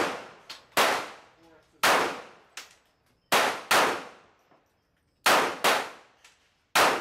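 Seven gunshots, some single and some in quick pairs under half a second apart, each ringing out briefly.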